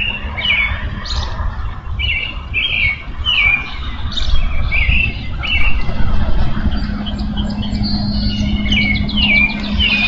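Songbirds singing: a run of short, down-slurred notes repeated about once or twice a second, over a steady low hum and rumble.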